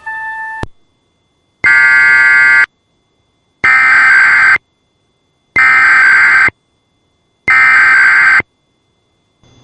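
Emergency Alert System SAME digital header bursts: four identical harsh, buzzing data bursts about a second long each, spaced about two seconds apart, opening a required weekly test. A steady tone cuts off just after the start.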